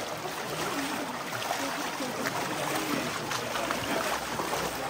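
Shallow canyon river water flowing steadily over stones, with indistinct voices of people wading in it.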